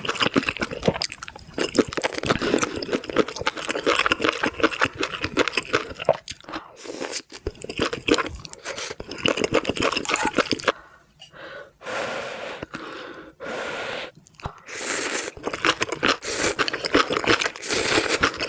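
A person eating spicy squid ramen: close chewing with many small, quick mouth clicks, with a brief lull about eleven seconds in.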